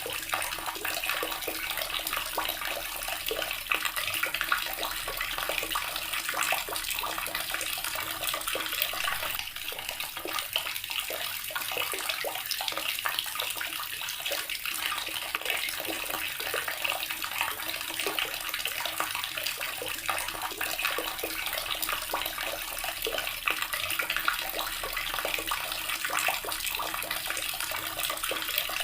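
Water running steadily from a tap and splashing into a basin, with a constant rush and many small splashes.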